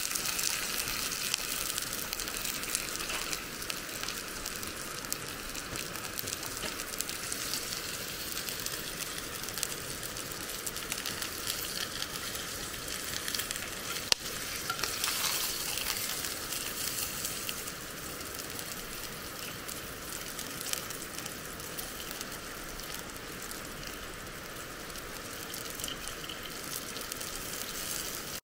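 Food sizzling in hot cast-iron cookware, a steady crackling hiss with one sharp click about halfway through.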